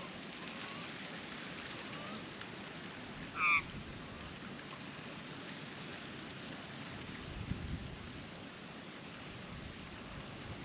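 Steady wind noise, with one short, sharp bird call about three and a half seconds in.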